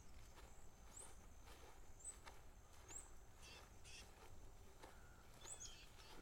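Faint bird chirps: short rising high notes about once a second, then a few stacked double notes in the middle and one more chirp near the end, over soft footsteps on a grassy trail.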